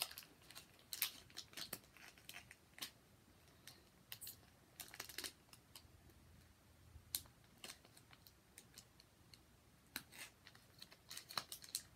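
Foil Pokémon booster pack being handled and opened by hand: faint, irregular clicks and short crinkly rustles of the wrapper.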